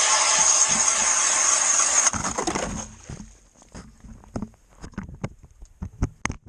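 Cordless-drill-powered hand ice auger, a brushless Milwaukee M18 Fuel drill, boring through the ice. It makes a loud, even grinding hiss that cuts off after about two seconds. Rougher, lower scraping follows, then scattered knocks.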